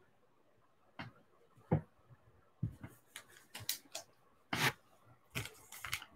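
Trading cards and a sealed card-pack wrapper being handled and opened by hand: scattered short rustles, crinkles and light taps.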